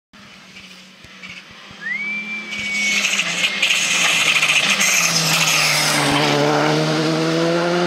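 Skoda Fabia R5 rally car with a 1.6-litre turbocharged four-cylinder engine, approaching at speed and passing close by on tarmac. The engine and tyre noise build to their loudest as it goes by, then the engine note rises steadily as it accelerates away.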